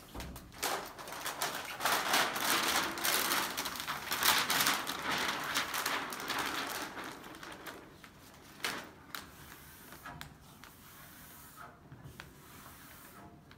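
Large sheet of plastic smart film crackling and rustling as its clear adhesive backing liner is peeled away. The crackle is dense and loud for the first several seconds, then gives way to a few lighter rustles and taps.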